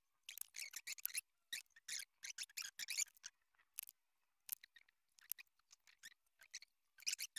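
A pen scratching across a wooden block in short, irregular strokes as layout lines are drawn along a steel square, with a few small clicks between the strokes.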